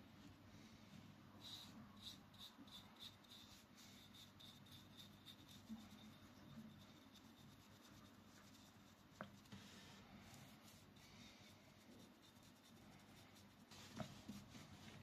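Near silence with faint, soft brushing from a small paintbrush working finish onto a carved wooden knife handle and in its tin. There is a run of quick strokes, about three a second, in the first few seconds, a light tap about nine seconds in, and another near the end.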